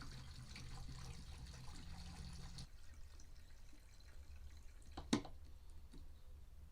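Faint trickle of two-stroke fuel mix pouring from a gas can's spout into the fuel tank of a Stihl BR800C backpack leaf blower, stopping about two and a half seconds in. A single sharp click follows about five seconds in.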